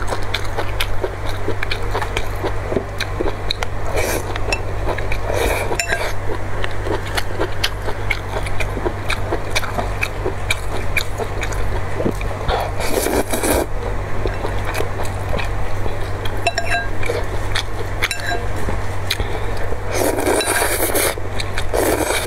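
Eating from a glass bowl of spicy broth with kelp and glass noodles: chopsticks click and scrape against the glass and the broth splashes, with two loud slurps of noodles, about halfway through and near the end. A steady low hum runs underneath.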